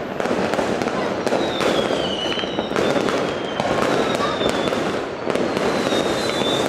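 Many fireworks going off at once: a dense run of bangs and crackling, with whistling shells that slide down in pitch twice.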